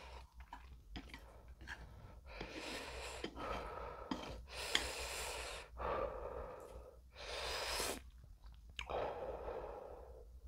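A man breathing hard through his mouth, about five long, breathy puffs of air with short pauses between. He is reacting to the burning heat of very spicy fire noodles.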